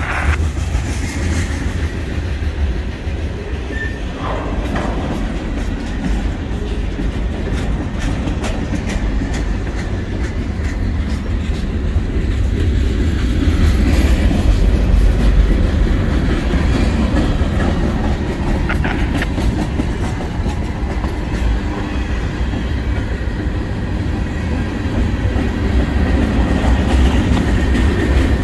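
Freight train cars rolling steadily past, a continuous low rumble with wheels clicking over rail joints.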